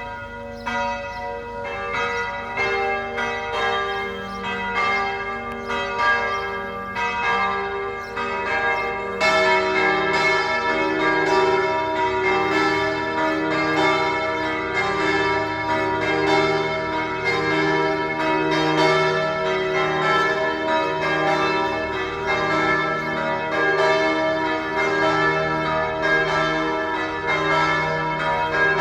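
Church bells ringing a full peal, with many overlapping strikes and long ringing tones. About nine seconds in, the ringing grows fuller and louder, as if more bells join.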